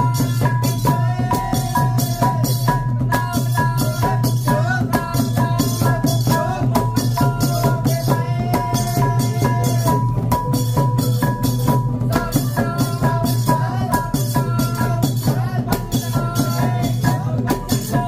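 Khmer chhay yam music played live: a fast, dense beat of drums and rattling percussion, with a steady high tone and a wavering melody line above.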